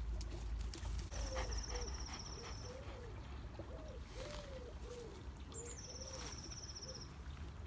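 A pigeon cooing, a repeated phrase of soft notes that rise and fall, with a high, even bird trill over it twice. A low rumble of wind on the microphone lies beneath.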